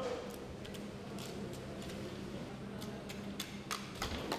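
Knife work on a tuna carcass: irregular sharp ticks and light scrapes as the blade meets bone and the cutting table, more frequent in the second half, over a steady low hum.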